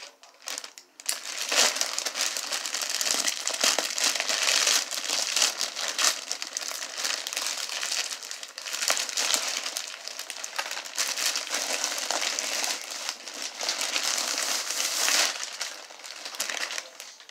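Plastic mailer bag and plastic packaging crinkling and rustling as they are handled and torn open, with the costume in its plastic bag pulled out. The crinkling starts about a second in and dies down shortly before the end.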